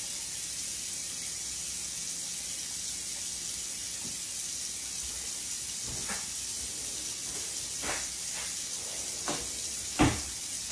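Kitchen faucet running steadily into the sink, a soft even hiss, as warm water is run to fill a soup can. A few light knocks come in the second half, with a sharper one near the end.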